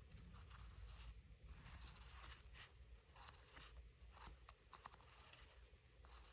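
Packed cornstarch being squeezed and pressed, making a faint run of short soft crunches and squeaks, a few each second.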